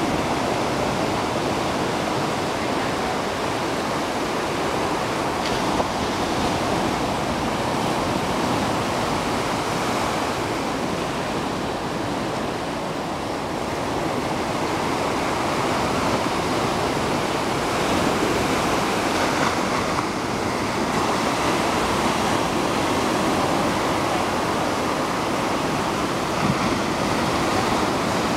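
Ocean surf breaking and washing in around dead trees on the beach: a steady rushing of water that rises and falls gently with the waves.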